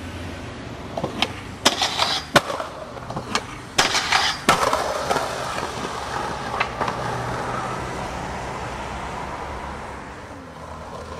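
Skateboard being ridden: a string of sharp pops and clacks of the deck and trucks in the first few seconds, then the wheels rolling steadily and fading away.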